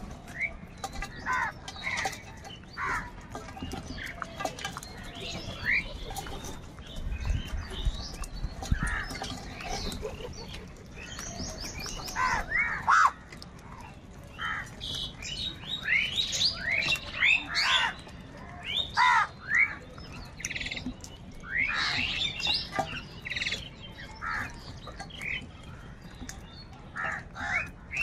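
A flock of house crows cawing: many short, harsh calls, some overlapping, scattered at first and coming thicker and louder from about halfway through.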